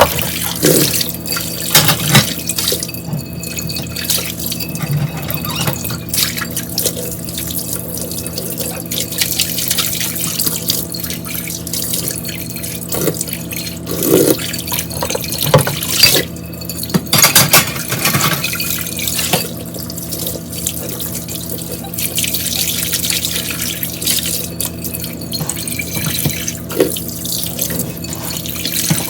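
Tap water running into a kitchen sink while dishes are washed and rinsed, with scattered sharp clinks and knocks of dishware, a cluster of them just past the middle.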